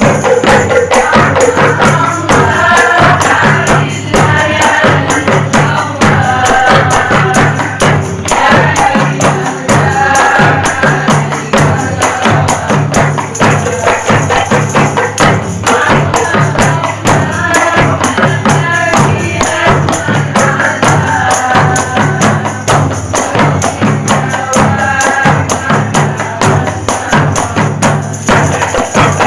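Rabana (rebana) frame drums played together in a steady, repeating rhythm. A group of voices chants a sholawat over the drums in stretches.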